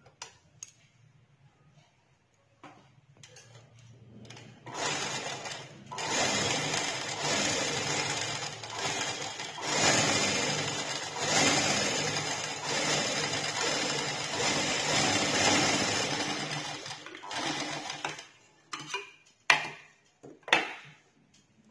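Umiya straight-stitch sewing machine running steadily for about thirteen seconds, starting about five seconds in, as it sews a test seam through fabric after its upper thread tension has been adjusted. A few sharp clicks come before it starts and again near the end.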